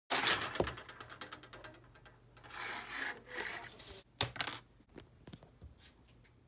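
Armature wire scraping and clattering on a wooden desk: a quick run of rapid clicks at the start, then rubbing, then a sharp knock about four seconds in as it is set down, followed by a few faint ticks.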